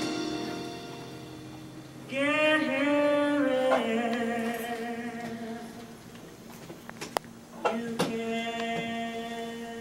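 Music with a singing voice holding long, steady notes over a sustained background, the first note entering about two seconds in with a slight wobble. A few sharp clicks sound about seven to eight seconds in.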